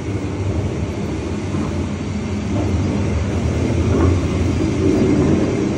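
Ribbon blender powder mixer running, its electric motor, belt and gear drive turning the ribbon agitator with a steady low mechanical hum.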